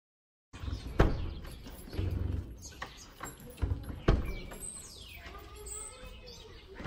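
Outdoor ambience under trees cutting in about half a second in: a low rumble on the microphone, two sharp knocks about a second and four seconds in, and birds calling, with a falling call about five seconds in.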